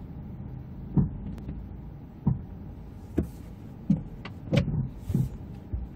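Inside a 2017 Kia Niro's cabin: a low steady hum, with about six short knocks and clunks scattered through it and a sharp click at the end.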